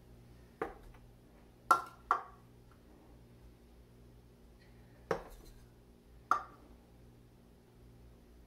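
A measuring cup knocking and clinking against the glass rim of a flour canister while scooping flour: five short, sharp knocks, two close together about two seconds in, the louder ones ringing briefly.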